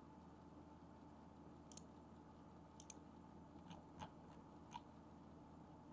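Near silence with about half a dozen faint, sharp computer mouse clicks scattered through the middle, two of them in quick succession.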